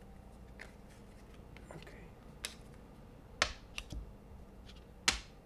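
A handful of short, sharp clicks spaced irregularly over a quiet room hum.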